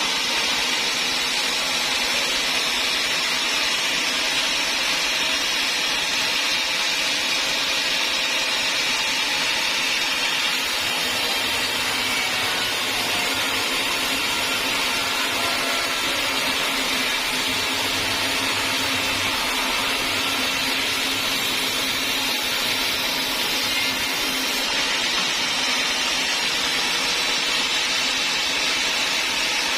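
Sawmill saw running steadily, a continuous high-pitched machine noise at an even level.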